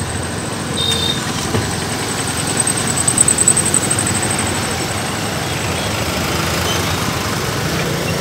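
Street traffic: car and motorbike engines running and passing close by in a steady din. A brief high beep comes about a second in, and a faint high whine runs through the middle.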